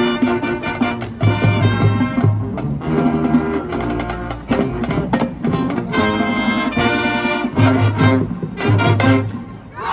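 Marching band playing a loud brass passage over low drum hits, stopping abruptly near the end.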